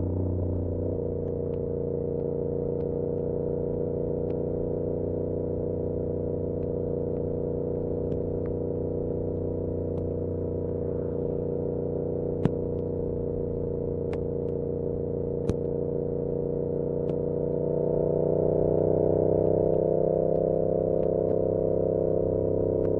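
Yamaha R7's parallel-twin engine with an SC-Project CR-T exhaust, heard from a recorder stuffed in the rider's backpack, running at a steady cruise and getting a little louder in the last few seconds. Backpack straps tap against the bag now and then with sharp clicks.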